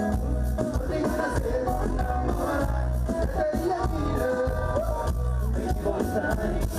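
Live concert music: a singer's voice over a band with a steady, heavy bass beat.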